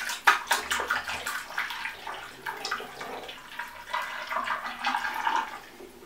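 Water poured from a large bottle through a funnel and tube into a PC water-cooling radiator, running in uneven spurts as the radiator fills.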